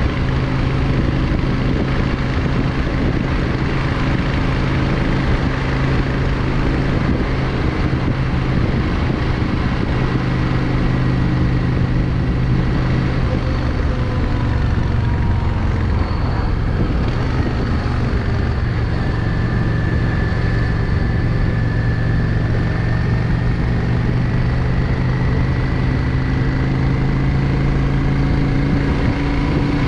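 Yamaha XVS 650 Drag Star's air-cooled V-twin engine running steadily while the motorcycle is ridden on the road, over a steady rush of noise. The engine note climbs a little near the end.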